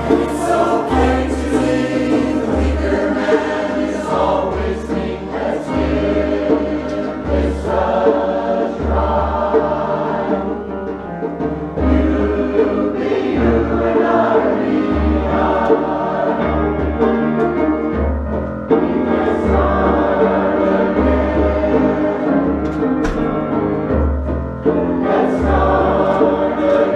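Mixed adult choir singing in parts, with a low, regular pulse underneath.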